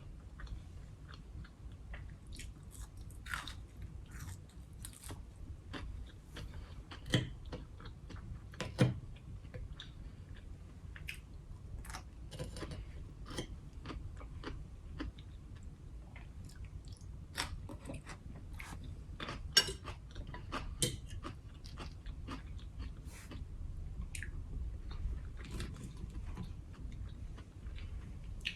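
A person chewing and biting food close to the microphone, with many small wet mouth clicks and a few louder sharp knocks.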